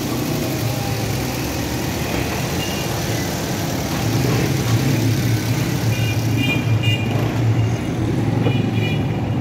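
Suzuki Swift petrol engine idling steadily just after being started, with no misfire after its faulty ignition coil was replaced. A few short high-pitched beeps sound in the second half.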